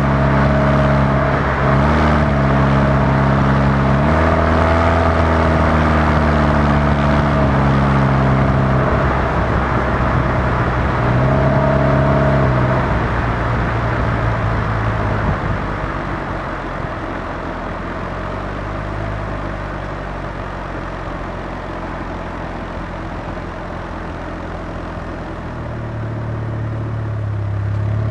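The DF Goblin mid-engine kit car's Chevrolet Cobalt four-cylinder engine, heard from onboard while driving. It pulls up through the gears in the first half, its pitch climbing and dropping at each shift over steady road and wind noise. After that it settles into quieter, even running and builds again near the end.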